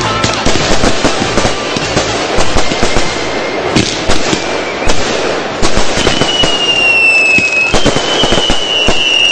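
Fireworks going off: dense crackling and popping with frequent sharp bangs. From about six seconds in, high whistling fireworks join in, several at once, each sliding slowly down in pitch.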